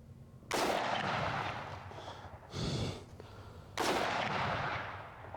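Two rifle shots from a semi-automatic Windham Weaponry AR-15 A2, about three seconds apart, each ringing out for about a second, with a shorter, softer sound between them.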